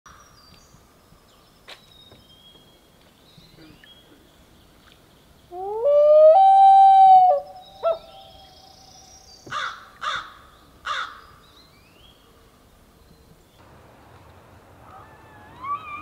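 Common loon wailing: a long call that rises and then holds steady for about two seconds, followed by a brief note and three short, sharper calls, with small birds chirping faintly. Near the end a high rising whistle begins, the start of a bull elk's bugle.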